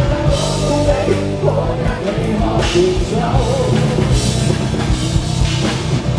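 Live rock band playing loudly, with drum kit, bass and distorted guitar, and some singing heard.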